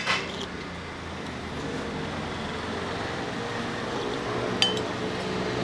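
A motor vehicle's engine running close by, a steady low hum that builds slightly. A slurp of soup from a spoon at the very start, and one sharp, briefly ringing clink of a metal spoon on a porcelain bowl about four and a half seconds in.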